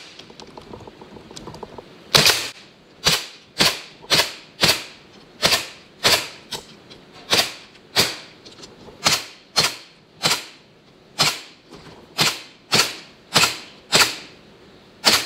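Bostitch 18-gauge 7/32" narrow crown pneumatic stapler firing staples into wooden beehive frames: a quick run of about twenty sharp shots, roughly one every half second, beginning about two seconds in.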